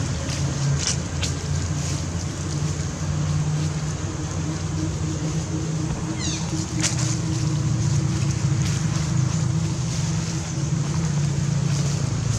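Steady low hum of an engine running without change, with a few faint clicks and a brief high chirp about halfway through.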